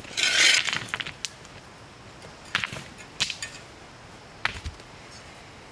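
Footsteps scuffing over dry sandy dirt, then several separate sharp clicks and a light thud as a small camp shovel is handled.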